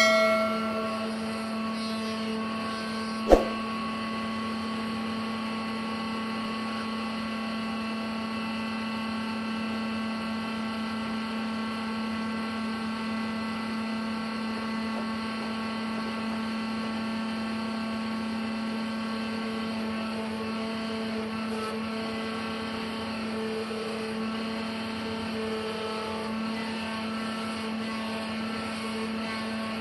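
Sawmill machinery running with a steady, unchanging drone. A single sharp knock comes about three seconds in.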